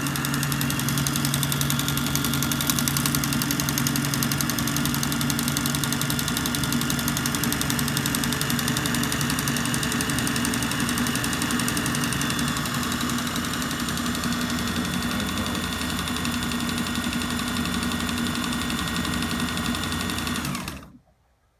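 Kenmore 158 series sewing machine running steadily at speed, its electric motor driving the exposed main shafts with an even mechanical hum. It is running well after a cleaning. It stops abruptly about a second before the end.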